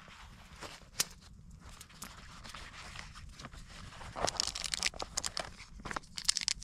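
Rustling and crinkling of packaging handled close up, with irregular clicks and crackles that grow denser and louder in the second half.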